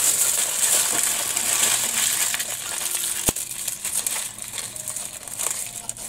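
Aluminium foil crinkling and crackling as a food parcel is folded and rolled up in it by hand. It is busiest in the first half and eases off later, with one sharp click a little past three seconds in.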